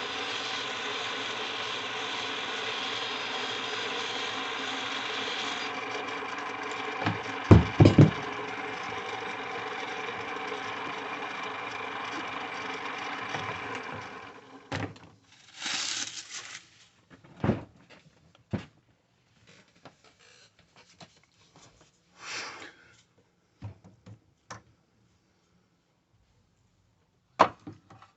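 A lathe running steadily under power, with a few loud sharp knocks about 7 to 8 seconds in. It winds down and stops about halfway through, followed by scattered clicks and knocks of handling at the machine.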